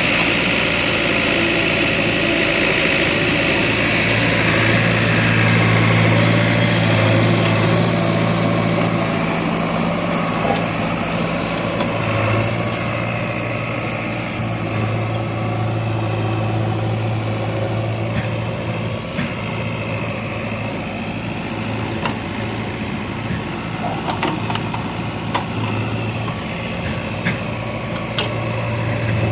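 Heavy diesel engine of a backhoe loader or farm tractor running steadily at an even speed, with a few short clicks or knocks near the end.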